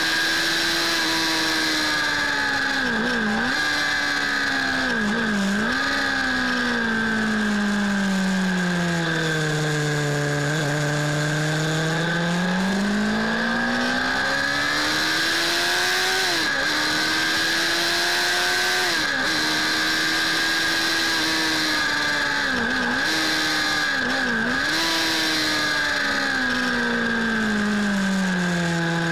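Suzuki Bandit S 600's inline-four engine at track speed, heard from the rider's position. The note rises and falls with the riding: there are several short sharp dips, as on gear changes, and in the middle a long slow fall while slowing for a corner before it climbs again. Steady wind noise runs underneath.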